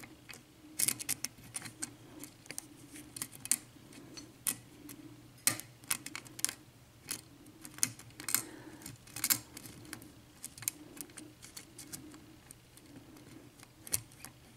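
Lock pick working the pins of a 6-pin ERA euro cylinder: many light, irregular clicks and scrapes of the steel pick against the pins, with the plug held in a false set.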